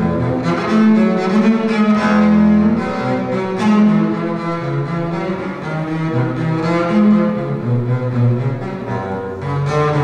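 Solo double bass played with the bow: a melodic line of held notes, one after another.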